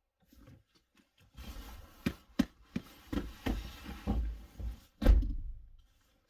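Jacket fabric rustling with a string of clicks and knocks as someone shifts about in a car seat, and a louder thump about five seconds in.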